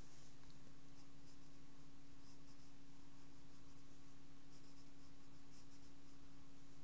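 Pencil scratching on paper, sketching lines in several short runs of quick strokes, over a steady low hum.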